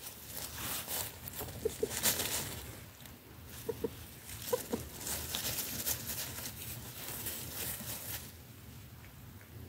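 Chickens clucking while foraging: short clucks, mostly in pairs, three times in the first half. Under them runs a steady rustling, pattering noise.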